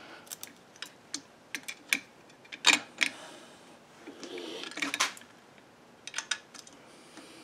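Irregular sharp metallic clicks and clinks as an ignition coil and its mounting hardware are handled and fitted onto a bracket on a Kohler Command Pro V-twin engine. The loudest click comes about two and a half seconds in, with a cluster of clicks near five seconds and a few more shortly after.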